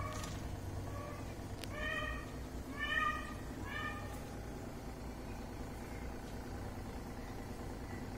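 Domestic cat meowing, five short meows about a second apart, the third and fourth loudest, then quiet apart from a steady low background hum.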